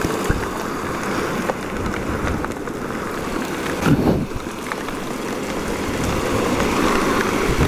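Very heavy rain pouring down and wind noise on the camera microphone as a motorcycle rides through the downpour, its engine running low underneath.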